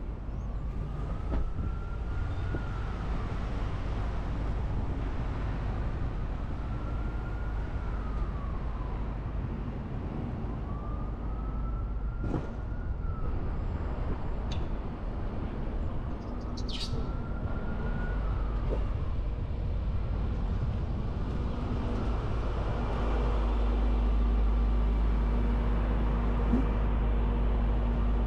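Emergency vehicle siren wailing in slow rising and falling cycles, about one every three and a half seconds, over a steady rumble of car engine and road noise in city traffic. The siren fades out about two-thirds of the way through, while the engine and road rumble grows louder.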